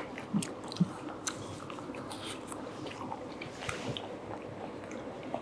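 Chewing and wet mouth sounds from eating a soft cream-and-fruit salad, with small clicks scattered throughout.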